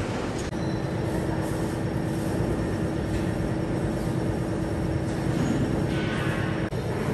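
Steady machinery hum and rumble of a metal-working workshop, with one held tone running through it. The sound drops out sharply for an instant about half a second in and again near the end.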